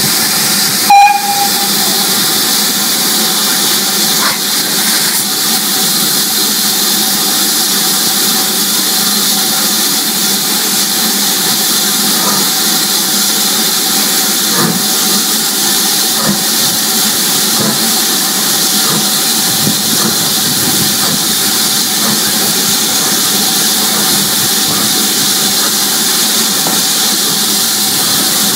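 Steam locomotive hissing steadily and loudly with escaping steam, with one short, louder sound about a second in.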